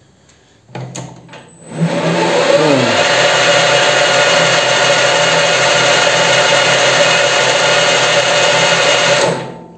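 Weisan CJM360 metal lathe's spindle motor, run through a frequency inverter, starting up: it spins up with a rising whine in about a second, runs steadily with a multi-tone machine whine, then winds down shortly before the end.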